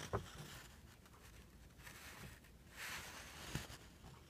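Quiet room tone with faint handling noise: a soft click just after the start, a brief soft rustle about three seconds in, then another small click.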